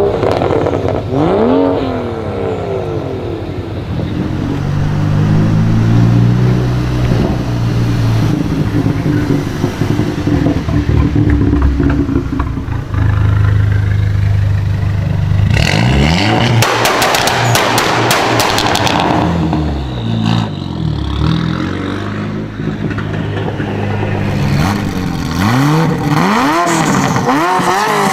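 Modified car exhaust revving in quick blips, the engine pitch sweeping up and down, with a steadier low-rev stretch. About halfway through comes a rapid run of crackles and pops, and more quick rev blips follow near the end.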